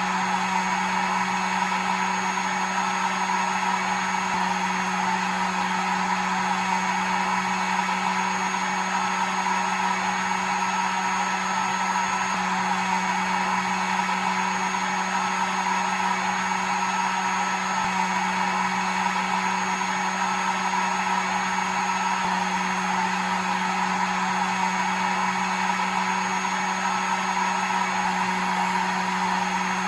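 Hair dryer running steadily: a constant low motor hum under the rushing noise of its air stream, with no change in speed.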